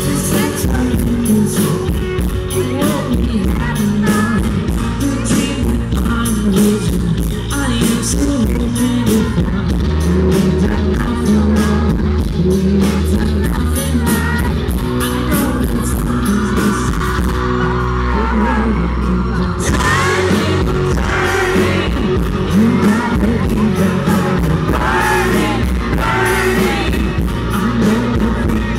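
Live pop-rock band playing with a male lead singer, loud and full, heard from within the concert crowd. About two-thirds through the band thins out briefly, then comes back in fuller.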